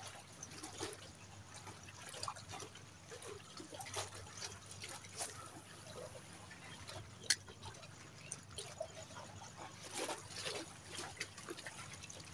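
Faint lapping and trickling of small waves, with scattered light ticks and one sharper click about seven seconds in.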